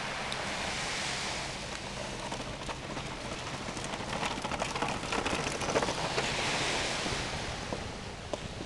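Rattling clicks of a plastic ride-on toy motorbike's wheels rolling over wooden boardwalk planks, densest in the middle, over a steady hiss of wind and surf that swells twice.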